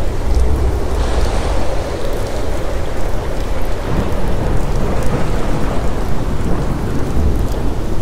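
Thunderstorm: steady rain with deep rumbles of thunder, one rolling in at the start and another near the end.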